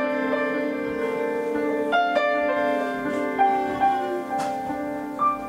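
Upright piano and a bowed string instrument playing together: the bow holds long, slightly wavering notes while the piano strikes notes and chords over them.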